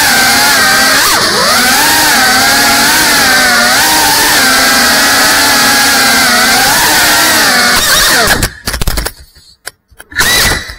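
GEPRC CineLog35 cinewhoop FPV drone's brushless motors and ducted propellers whining, the pitch rising and falling with the throttle. About eight seconds in, the whine breaks into short bursts with gaps.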